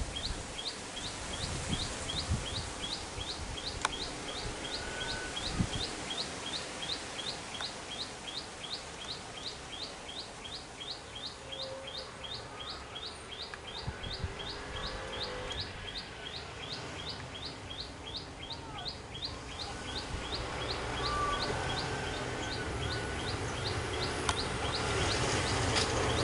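A bird calling with one short, high chirp repeated steadily about three times a second, with other birds whistling now and then. A low vehicle engine rumble grows louder near the end.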